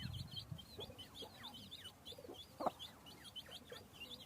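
Birds calling: a quick run of short, high chirps, with a few lower calls between them, the loudest about two and a half seconds in.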